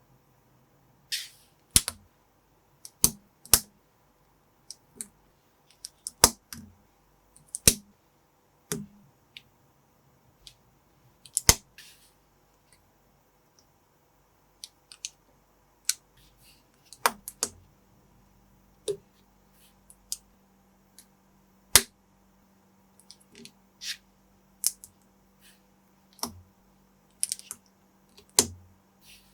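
Plastic building bricks being handled and pressed together: irregular sharp clicks and snaps, some in quick pairs or small clusters, about one or two a second.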